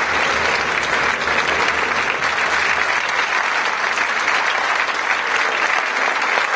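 A large concert audience applauding steadily, a dense continuous clapping.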